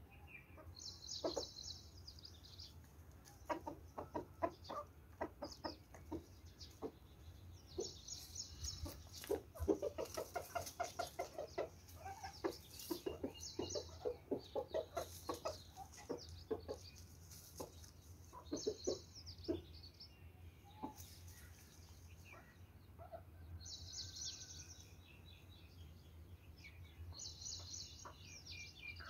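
Chickens clucking in runs of quick, short clucks, the longest run about a third of the way in. Now and then there are short bursts of high chirping.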